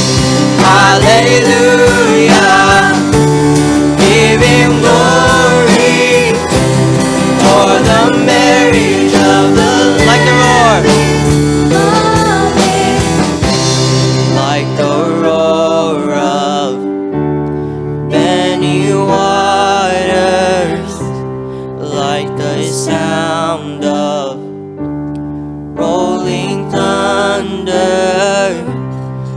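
Worship song played by a band with guitar and bass, with a singer holding long, wavering notes. About halfway through, the low end drops out and the music grows quieter.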